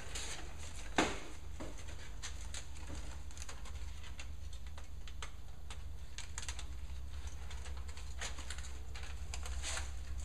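Scattered crinkles and light clicks from handling foil bubble-wrap radiant-barrier insulation, with one sharper knock about a second in, over a steady low hum.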